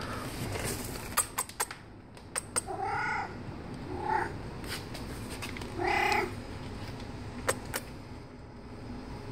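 Domestic cat giving three short meowing calls, about a second or so apart, the first and last longer than the middle one. Several sharp clicks come before and after the calls.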